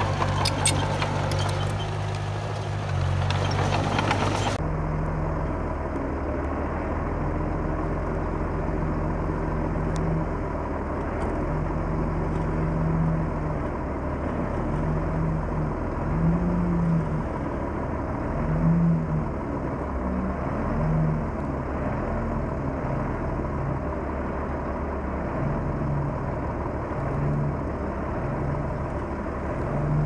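Diesel engine of a Komatsu D31P crawler bulldozer working under changing load, its note rising and falling in short swells every second or two. For the first few seconds a dense rattle of clicks sits over the engine, then the sound changes abruptly.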